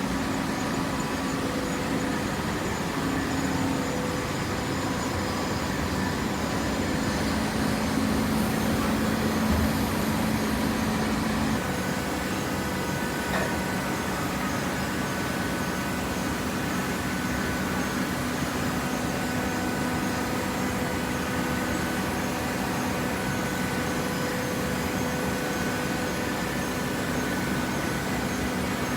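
Waste paper box baler with conveyor running: a steady mechanical hum with several held tones. The hum shifts in pitch and a higher whine joins about twelve seconds in.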